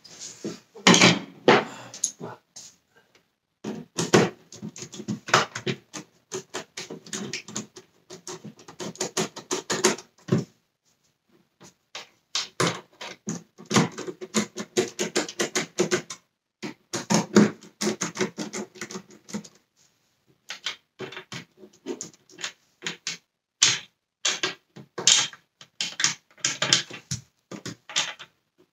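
Screws being turned by hand with a screwdriver into the plastic body of a Dyson Cinetic Big Ball vacuum cleaner, with parts being handled. The sound is rapid clicking and scraping in bursts, broken by short pauses.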